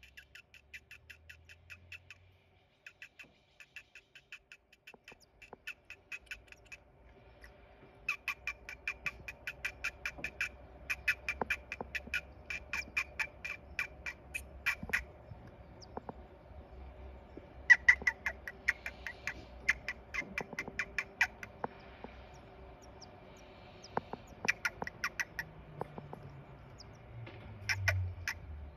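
Great tit nestlings begging in the nest: fast runs of short, high chirps in bursts of several seconds, with short pauses between. A low steady hum sits underneath from about five seconds in.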